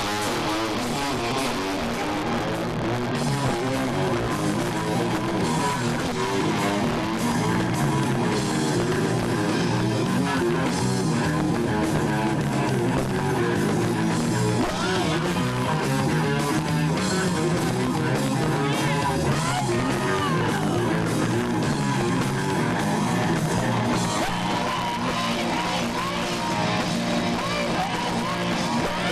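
Live rock band playing loud, with electric guitars, bass and drums and a voice singing, recorded from the audience.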